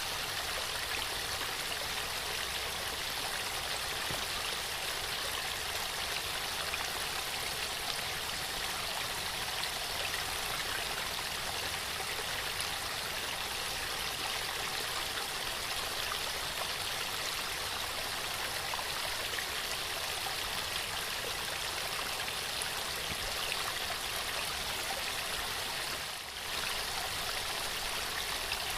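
Waterfall: water falling and rushing in a steady, even hiss, with a brief dip in level about 26 seconds in.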